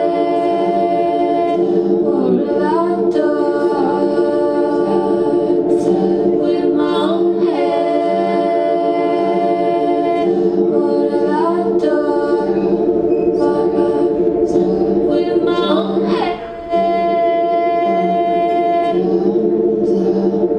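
Female voice singing long held notes, sliding into each one every few seconds, over a steady bed of layered, looped vocal harmonies that sound like a small choir. The sound briefly dips about three-quarters of the way through.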